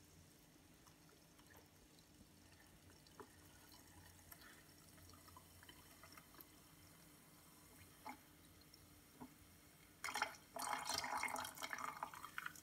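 Tonic water poured slowly down a bar spoon into a glass over a large ice cube: a faint trickle with scattered drips, then a louder pour for about two seconds near the end.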